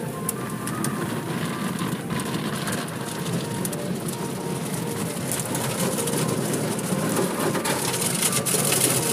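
Automatic car wash heard from inside the car: soft-cloth wash strips scrubbing and slapping across the foamed windshield amid spraying water and the running wash machinery. It grows a little louder near the end.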